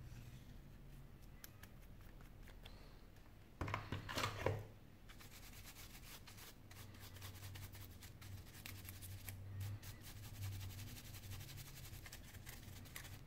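Dry bristle brush scratching over a smartphone's metal display frame to sweep off dust, with a louder burst of rustling handling about four seconds in.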